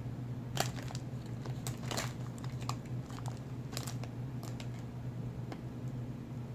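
Crinkling and scattered clicks of candy packaging being handled while jelly beans are picked out, over a steady low hum.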